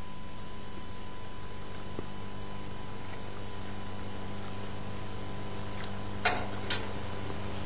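A steady background hum with a thin high whine, then two short clinks about half a second apart near the end: a metal ladle knocking on the copper pot of rice and boiling water.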